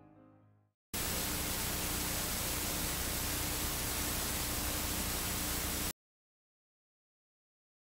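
Analog TV/VHS static hiss, an even noise with a faint steady hum in it. It starts suddenly about a second in and cuts off abruptly about five seconds later, leaving dead silence.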